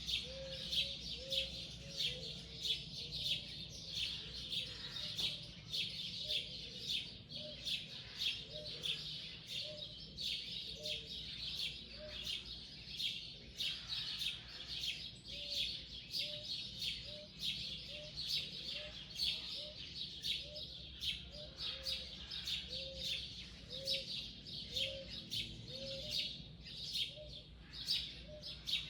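A chorus of many wild birds chirping continuously and rapidly, with a lower short call repeated about once a second underneath.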